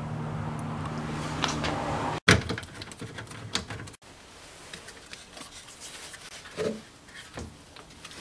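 Soldering gun humming steadily for about two seconds, then after a break, scattered clicks and knocks of wires and a speaker being handled.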